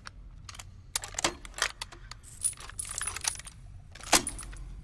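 Guns being handled and readied: a series of sharp metallic clicks and clacks with a faint metallic ring, the loudest near the end.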